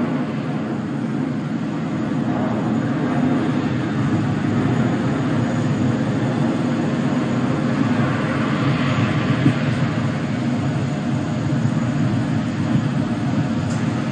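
Kawasaki C-2 military transport in flight overhead, its twin turbofan engines giving a steady jet rush.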